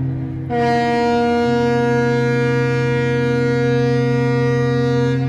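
Ship's horn sounding one long, steady blast at a single pitch, starting about half a second in and lasting about four and a half seconds, over a continuous low drone.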